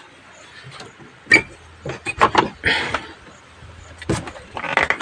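Metal clicks, scrapes and rattles of a steel sliding barrel bolt and hasp being worked on a bamboo door to unfasten it, with sharper knocks about a second in and again near the end.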